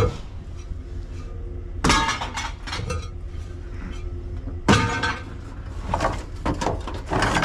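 Junk being handled and tossed out: two loud clattering crashes about two and five seconds in, with glassy clinks and smaller knocks near the end, over a steady low hum.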